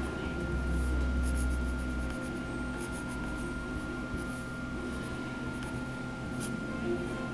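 A pen writing on bare wood, in short scratching strokes as letters are formed, over a steady faint hum.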